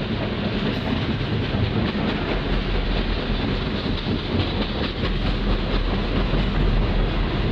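Freight train of covered grain hopper cars rolling past, a steady noise of steel wheels running on the rails.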